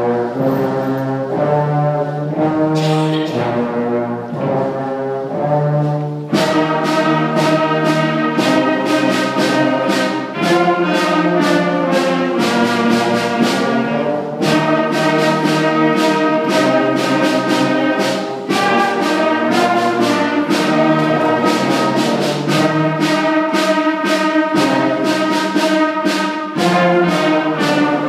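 Sixth-grade school concert band of flutes, clarinets and brass playing a piece together under a conductor. About six seconds in, a run of sharp, evenly spaced strikes joins the sustained wind chords and keeps a steady beat.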